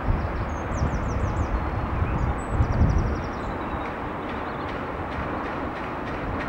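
Open-air ambience: a steady rumble with irregular low gusts in the first few seconds. Small birds chirp in quick runs of high notes about a second in and again near the three-second mark.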